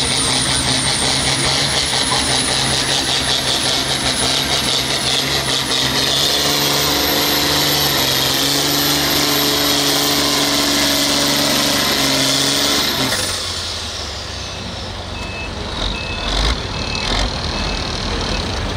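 International hot stock pulling tractor's turbocharged diesel running at full throttle under the load of a pulling sled, with a high turbo whistle over the engine note. About thirteen seconds in, the engine cuts back sharply as the pull ends. A backup alarm then beeps several times, with a couple of knocks.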